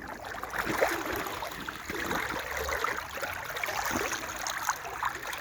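Shallow brook water running, with irregular small splashes of boots wading through it.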